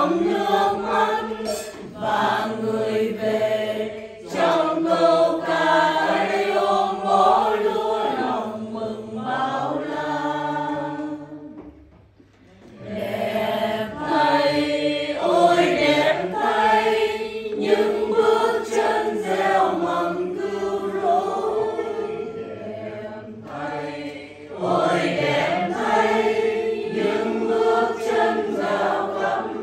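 Congregation singing a Vietnamese hymn together in sustained phrases, with a short pause about twelve seconds in.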